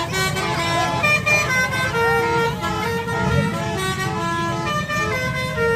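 A bus's multi-tone 'telolet' Basuri horn playing a tune in held, stepping notes, with the bus's engine running underneath.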